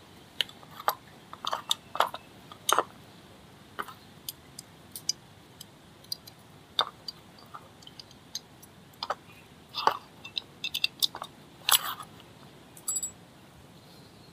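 Irregular light clicks and clinks of small metal drum-brake parts being handled and fitted, some coming in quick clusters.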